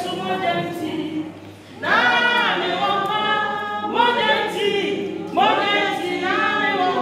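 Congregation voices singing unaccompanied, a chorus in sung phrases that swoop up at their start, with a brief lull about a second in.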